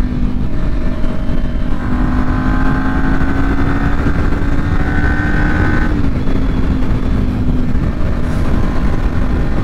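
Sport motorcycle engine running steadily at highway cruising speed, under a heavy rush of wind noise on the microphone. The engine note drops slightly about six seconds in.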